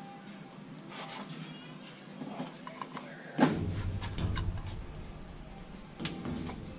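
Faint clicks and light knocks of a gear oil squeeze bottle and fill tube being handled at a car's rear differential, with a sharper knock about three and a half seconds in.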